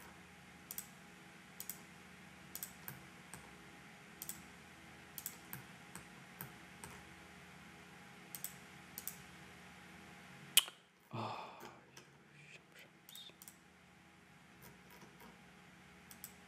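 Computer mouse clicking at irregular intervals, often in quick pairs, over a faint steady hum, as edges are picked one by one on screen. A sharper click comes about ten and a half seconds in, followed by a brief low sound.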